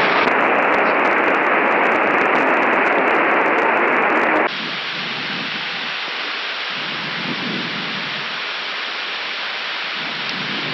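Loud hiss of radio static for about four and a half seconds, cutting off suddenly. A steadier, quieter rush of cockpit noise from an Airbus A319 in flight follows.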